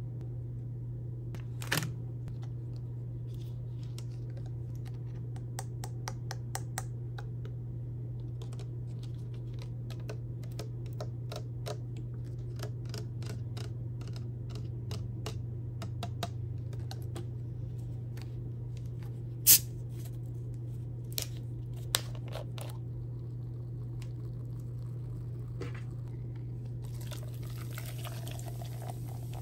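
Scattered small clicks and taps of hands handling candy packs and a plastic soda bottle over a steady low hum, with a few sharp clicks and one louder snap about two-thirds through. Near the end, carbonated blue soda pours and fizzes into a plastic cup.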